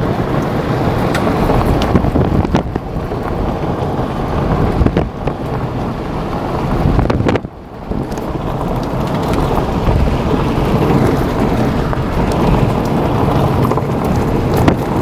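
Road noise of a car driving on a dirt road, with wind buffeting the microphone at the side window: a steady loud rushing roar with scattered sharp clicks. The roar drops out briefly about halfway, then comes back.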